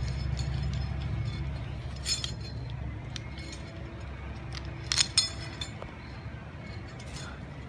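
Sharp metallic clinks of harness carabiners and a pulley trolley on a steel safety cable, a few separate clinks with the loudest about five seconds in, over a low steady rumble.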